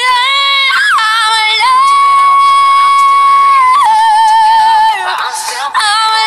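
A woman's pop vocal belting long, high held notes over backing music. One note is held steady for about two seconds, then the voice wavers and drops, with a short break before the next long note.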